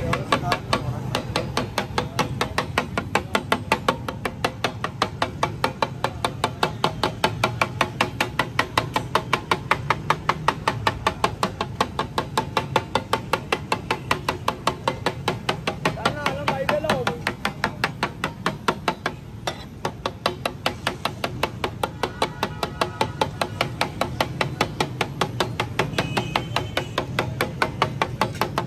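Metal spatula chopping and mashing tomatoes on a large flat tawa griddle: rhythmic metal-on-metal clacks about three to four a second, with a brief pause about two-thirds of the way through.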